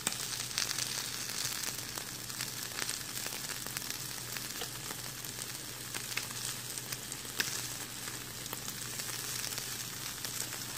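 Chicken skewers sizzling and crackling on a hot electric grill plate, a steady hiss with many small pops, over a steady low hum.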